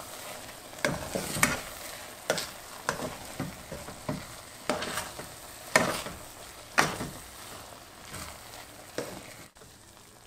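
A spoon stirring and scraping through rice in a pot, about a dozen uneven strokes, with a faint sizzle underneath: the cooking water has cooked off and the rice sits over a low flame.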